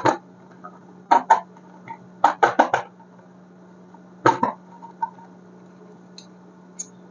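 Hard objects clacking together in short clusters of two to four sharp knocks, with a couple of faint ticks near the end, over a steady low hum.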